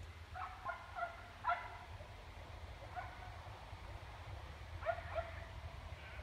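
Dogs barking in short runs: about four quick barks at the start, a single bark about three seconds in, then two more near the end, over a low steady rumble.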